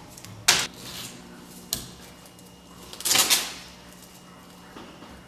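Paper being torn by hand: two short ripping sounds, the second longer and louder, with a light click between.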